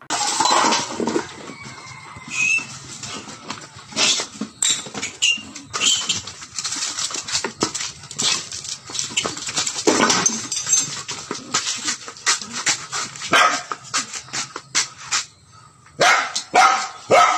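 Small dog barking repeatedly in short, sharp barks.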